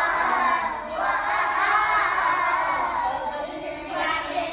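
A group of young children singing a song together in long phrases, with short breaks about a second in and near the end.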